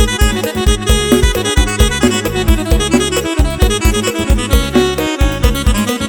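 Live Electone electronic keyboard music with a heavy bass line and a quick, steady beat, melody notes held over the top.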